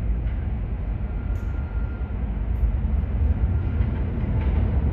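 New York City Subway train running through the station: a steady low rumble with a faint high whine for about a second.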